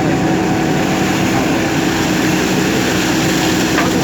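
JCB backhoe loader's diesel engine running steadily under work, a constant hum with a held tone.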